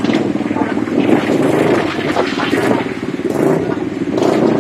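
Steady low drone of a motor vehicle engine running nearby in street traffic, with voices faintly in the background.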